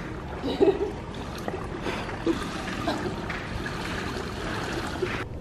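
Swimmer's strokes splashing and pool water lapping at the edge, over a steady hiss; the sound cuts off just before the end.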